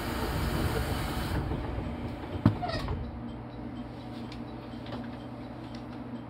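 JR Kyushu 813 series electric train standing at a station, heard from the driver's cab: a broad hiss that cuts off suddenly about a second and a half in, a sharp clunk about two and a half seconds in, then a steady low hum.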